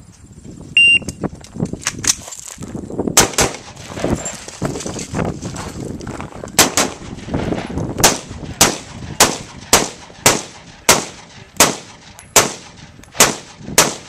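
A competition shot timer beeps once about a second in. An AR-style rifle then fires a string of shots, a few spaced out at first, then steadily about two a second through the second half.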